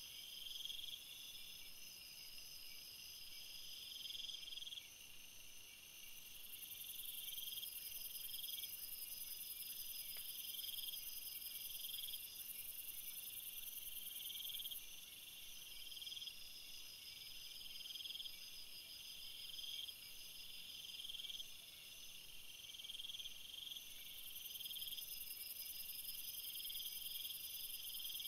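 A steady chorus of high-pitched, insect-like chirring that pulses on and off in repeating blocks of about a second, with finer rapid pulsing above it.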